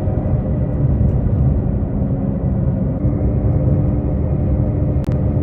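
Steady road and engine rumble inside a Chevrolet Sonic's cabin cruising at about 60 mph, with a brief click near the end.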